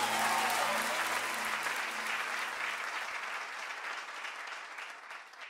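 Concert audience applauding, a dense patter of many hands clapping. A last held musical note beneath it dies out about three seconds in, and the applause fades away toward the end.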